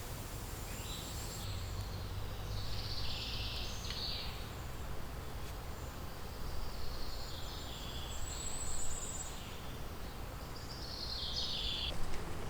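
Small birds singing in several short bursts of high chirps over a steady low background rumble.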